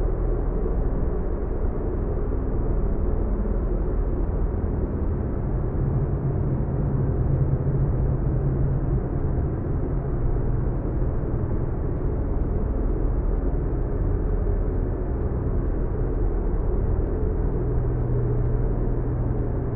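Designed sci-fi alien-landscape ambience: a steady, low rumbling drone with faint held tones inside it and no sharp events.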